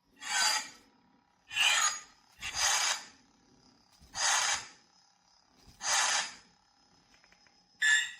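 Toy lightsaber's electronic sound effects: six short noisy swing sounds, about one to two seconds apart, over a faint steady hum.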